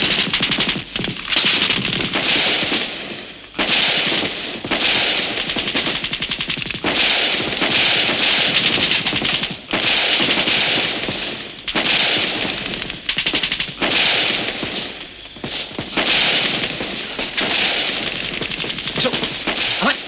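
Sustained heavy gunfire: rapid automatic bursts coming in waves every second or two, with single shots crackling between them.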